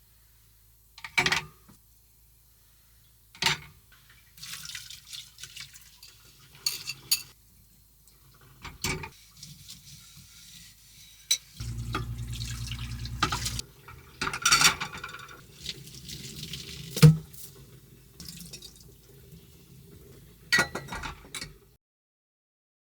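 Dishes, pots and cutlery clattering with water running at a small sink, marked by a series of sharp knocks. A steady low hum lasts about two seconds near the middle.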